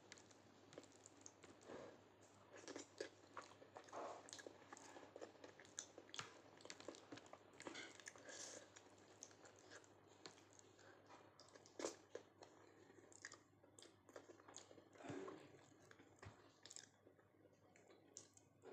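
A person chewing a mouthful of dal rice with Maggi noodles and egg close to the microphone: quiet, irregular wet clicks and smacks of the mouth and teeth.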